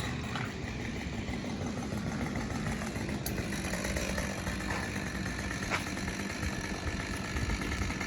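A motor engine idling steadily, with an even hum that holds the same pitch throughout.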